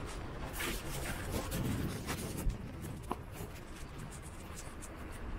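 Cloth rubbing and brushing against a pocket-carried camera's microphone while cycling, an irregular scratchy rustle over a low rumble.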